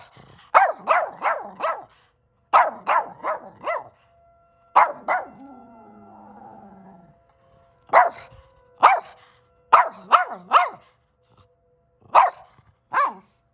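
A dog barking in quick runs of two to four barks with short pauses between, once briefly drawing out into a softer falling whine. The dog is upset by a siren.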